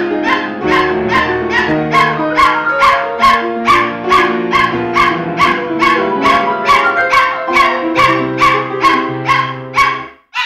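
Poodle howling and yipping along to piano music that has a steady pulse; the music stops near the end, followed by one short sound.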